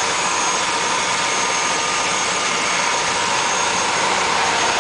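Turbine tour helicopter's engine running on the ground, heard from inside the cabin: a steady high whine over an even rush of noise.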